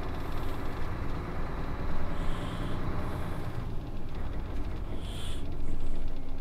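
A truck's engine running with a steady low rumble and road or idle noise, with a few short high-pitched sounds over it.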